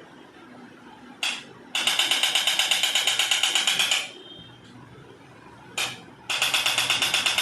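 Handheld electric percussion device pounding in rapid, even pulses, about ten a second, switched on in short bursts: a brief one about a second in, a two-second run, a quick tap near six seconds, then another run to the end.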